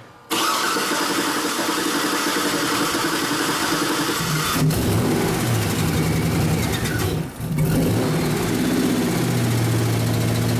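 2007 Cadillac Escalade V8 cranked on the starter for about four seconds until it catches, runs up, dips briefly about seven seconds in, then settles into a steady idle. The engine has a misfire on cylinder 8 that the owner suspects is mechanical: a bad lifter, pushrod or cam lobe.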